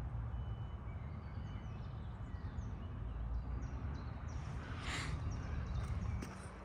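Woodland ambience: a steady low rumble with faint birds chirping, and a brief rustle about five seconds in. The rumble drops away shortly before the end.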